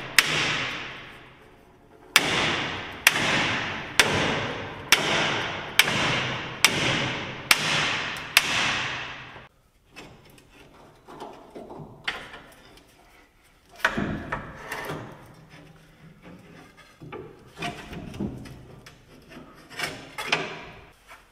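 A hammer strikes steel about once a second, nine blows in all, each ringing out and fading. After that come lighter clanks, knocks and scraping of metal parts being worked loose.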